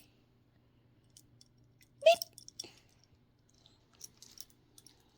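Mostly quiet, with scattered soft clicks and one sharp, short click with a brief squeak about two seconds in.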